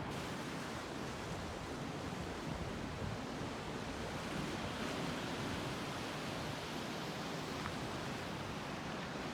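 Ocean surf: a steady rushing wash of waves with no distinct breaks, swelling slightly about halfway through.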